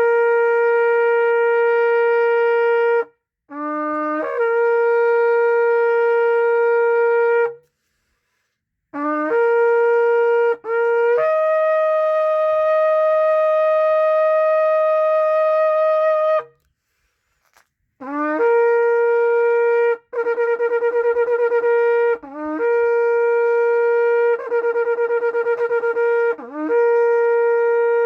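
A shofar (ram's horn) blown in a series of long blasts with short breaks, each note scooping up into pitch at its start. Most blasts sit on the same note; one in the middle is held on a higher note, and a few later ones waver quickly.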